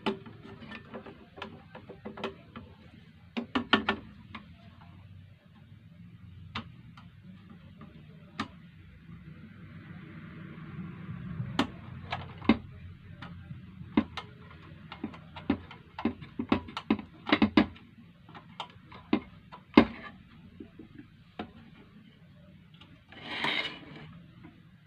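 Irregular clicks and knocks of a sewing machine foot pedal being handled and fitted back together after repair, with a brief rustle near the end.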